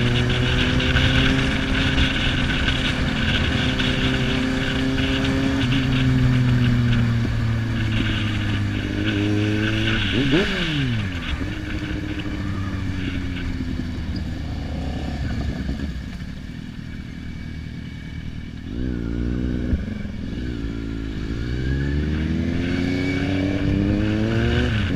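Motorcycle engine heard from the rider's seat over rushing wind: cruising steadily, then easing off, with a quick dip and rise in pitch about ten seconds in. It drops back to a quieter tickover around two-thirds of the way through, then accelerates with a rising pitch through several gear changes near the end.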